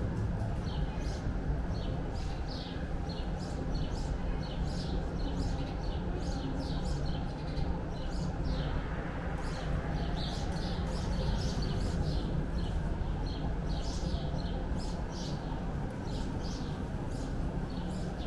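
Small birds chirping in many short, quick notes, over a steady low rumble.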